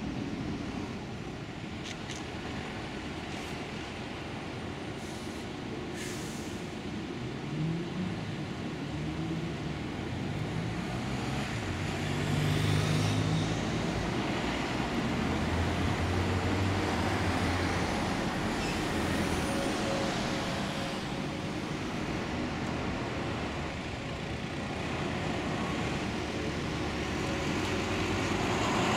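Road traffic at a city junction, with double-decker buses' engines pulling away and passing close. An engine note rises in steps several times, and the sound grows louder near the end as a bus passes right by.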